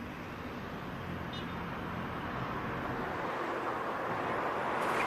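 Steady rushing noise of passing traffic, growing slowly louder, with one faint short chirp about a second and a half in.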